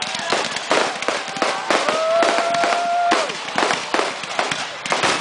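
Backyard fireworks and firecrackers going off in a dense run of sharp, irregular crackling pops. A steady held tone runs for about a second in the middle.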